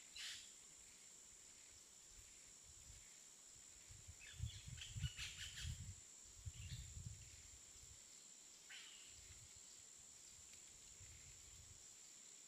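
Quiet outdoor ambience: a steady high insect drone, with a few short bird chirps near the start and about two-thirds of the way in. In the middle comes a cluster of soft knocks and rustles as a folding camp chair's frame and fabric seat are opened out.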